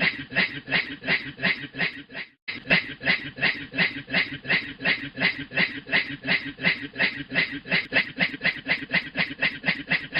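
A man imitating a steam train's chugging with his voice: a steady run of breathy 'chuff' pulses, about four or five a second, which breaks off briefly about two seconds in and then carries on.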